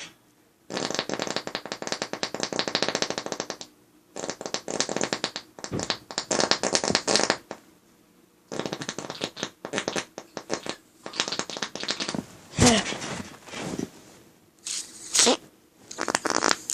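A run of fart sounds: several long, rapid, rasping sputters, each a few seconds long with short pauses between, and a couple of short squeaky ones that slide in pitch near the end.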